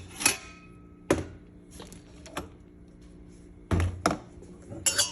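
A handful of sharp clicks and knocks, spaced irregularly, from hands working at an espresso machine, over a faint steady hum.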